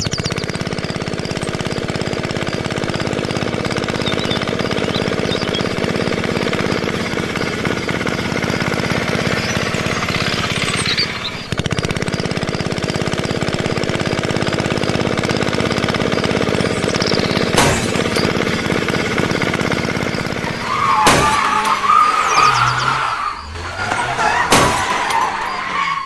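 Tractor engine running steadily. In the last few seconds it gives way to a few sharp knocks and a wavering squeal.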